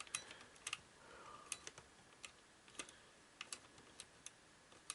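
Faint, irregular plastic clicks, roughly one or two a second, from the clock radio's four-way switch being worked back and forth to test a switch that isn't working properly.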